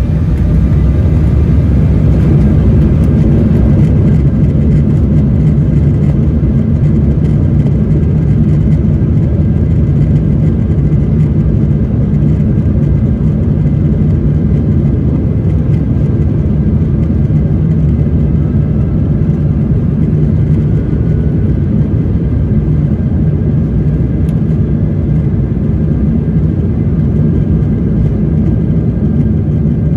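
Jet airliner's takeoff roll heard from inside the cabin: the engines at takeoff thrust make a loud, steady rumble that builds over the first few seconds.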